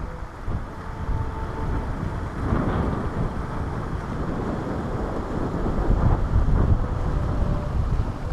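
Wind buffeting the microphone: a rumbling, gusty noise that swells about two and a half seconds in and again, loudest, around six seconds in.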